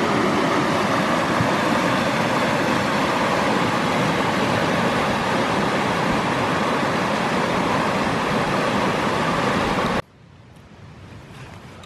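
Loud, steady rush of river rapids tumbling over boulders. It cuts off abruptly about ten seconds in, leaving a much quieter background with a few faint clicks.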